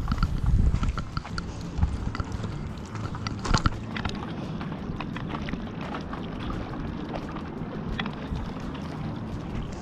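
Wind rumbling on the microphone, with scattered crunching footsteps and small clicks as someone walks along the shore.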